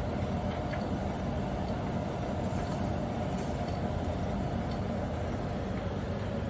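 Steady low rumble and hum of a running machine, with a faint steady tone and no change in level.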